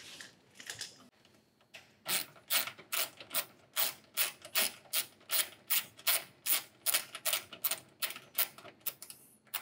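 A steady run of short rasping strokes, about three a second, starting about two seconds in: hand-tool work tightening the oil cooler's hose fittings.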